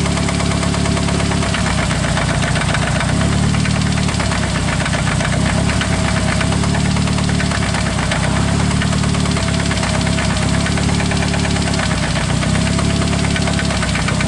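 Engine idling with a steady, rapid knock from its bottom end: rod knock, which the mechanic traces to cylinder number one.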